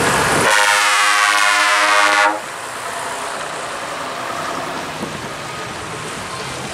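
Vintage bus's horn sounding one long blast of about two seconds that cuts off suddenly, followed by the bus's engine and tyres on the wet road as it drives past.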